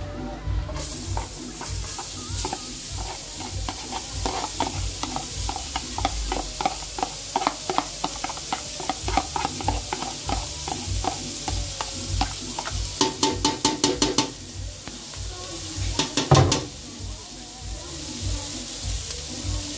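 Shredded chicken sizzling as it is tipped into a hot aluminium pot, with a plastic container scraping and tapping against the pot as it is emptied; two quick runs of knocks come about two-thirds and four-fifths of the way through. Background music with a steady beat plays underneath.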